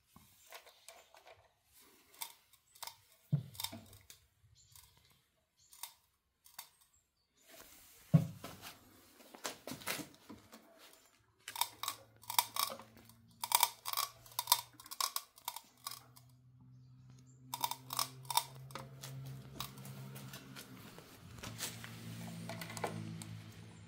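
L26 e-bike making repeated sharp cracking clicks at irregular intervals, in clusters. From about halfway through, a steady low motor hum runs under them. This is the abnormal cracking noise the owner treats as a fault.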